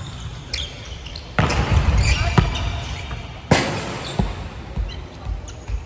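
Volleyball being played on a hardwood gym floor: the ball is struck hard three times, about a second apart, each slap echoing in the large hall.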